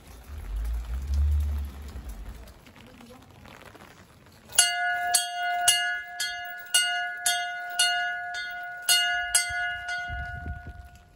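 Small bracket-hung wall bell struck about ten times at roughly two strikes a second, starting about four and a half seconds in, each strike ringing on into the next. Before it, a low rumble on the microphone for the first couple of seconds.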